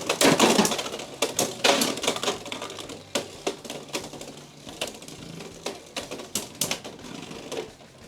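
Two Beyblade X spinning tops battling in a plastic stadium: a rapid, irregular run of sharp clicks and knocks as they rattle and clash, loudest in the first second after launch, with hard hits scattered throughout.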